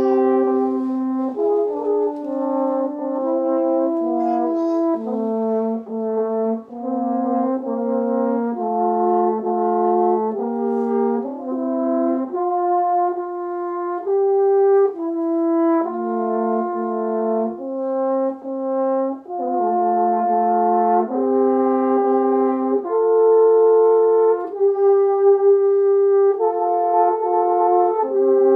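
Two French horns playing a duet, two lines of held notes moving together, changing about once a second.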